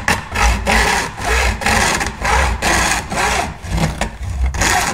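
Hand saw cutting through a plastic gauge pod with steady back-and-forth strokes, about two a second.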